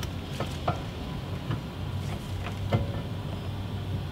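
Scattered light clicks and knocks as a new CV axle's splined outer end is worked into the steering knuckle's wheel-bearing hub, over a steady low hum.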